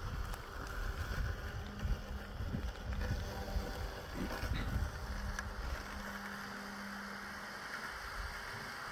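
Mammotion Luba 5000 robotic lawn mower running while it mows a steep grass slope, its electric motors giving a faint steady hum that comes and goes, over a low rumble of wind on the microphone.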